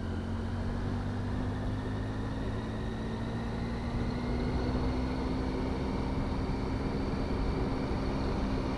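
Triumph Tiger 800's three-cylinder engine running steadily while the motorcycle is ridden along, with a steady rush of wind and road noise. The engine note climbs slowly over the second half.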